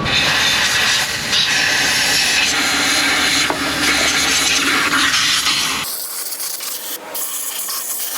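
Compressed-air blowgun hissing steadily as it blows dirt off the engine's intake area. About six seconds in the sound changes abruptly to a thinner, quieter hiss.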